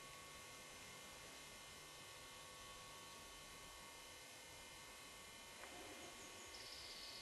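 Near silence: a steady faint hiss and hum, with a faint high-pitched sound in the last second or so.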